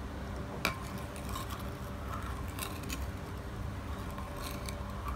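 Plastic spoon slowly stirring flan mixture in a ceramic bowl, with faint scrapes and light clinks against the bowl and one sharper click about half a second in.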